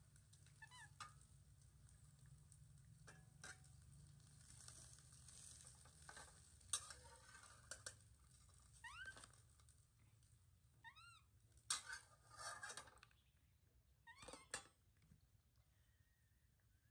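Metal spatula scraping and knocking in a steel wok as noodles are stir-fried over a gas burner, with faint sizzling. Baby macaques give a few short, high squeaks that rise and fall, about a second in and twice more around nine to eleven seconds.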